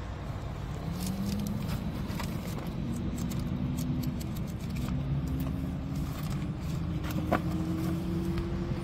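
A car engine running steadily, its pitch slowly creeping up, with a few light clicks over it and a sharper click about seven seconds in.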